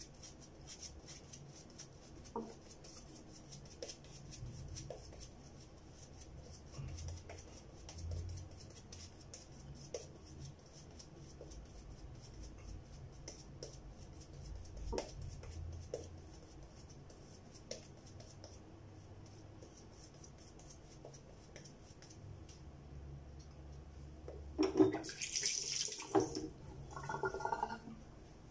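A razor scraping through lathered stubble in short, rapid strokes, heard as a fine crackle. Near the end comes a couple of seconds of running water and a few knocks.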